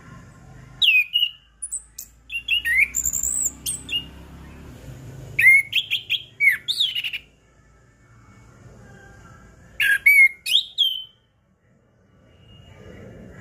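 Orange-headed thrush (anis kembang) singing in loud bouts of varied whistled phrases, the notes sweeping quickly up and down. There are four bouts, with short pauses between them.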